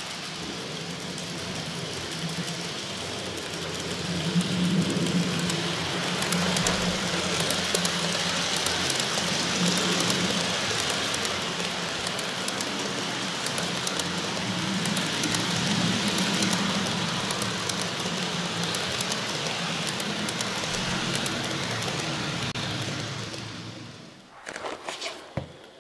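Model train of container wagons rolling close by on sectional track laid on a floor: a steady rolling rumble with a low hum and fine rapid clicking of wheels over the track. It falls away sharply near the end, leaving a few separate clicks.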